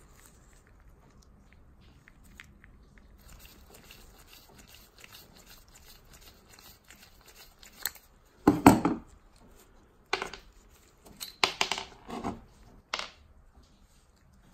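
Small rusty screw jack being taken apart by hand on a wooden workbench: faint scraping of metal parts, then from about eight seconds in a run of sharp clinks and knocks as a screwdriver works at the lifting head and steel pieces are set down on the wood.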